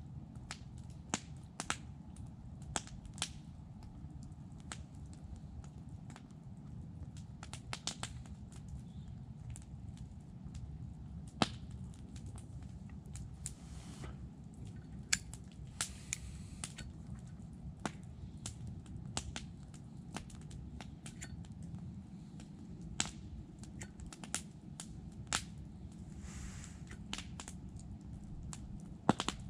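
Scattered sharp clicks, about one every second or two, with two short rasps, over a low steady rumble: a Zippo lighter being flicked open, struck and snapped shut while it struggles to light a cigar.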